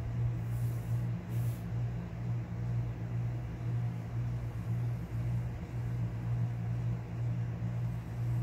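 A steady low machine hum with a slight pulsing waver, and two brief faint hisses about a second in.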